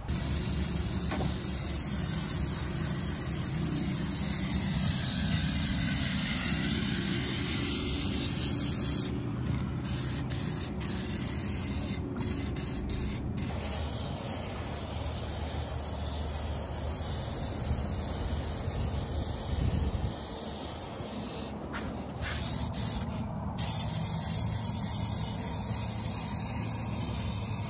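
Aerosol spray can spraying in long hissing bursts, with a few short breaks where the nozzle is let go.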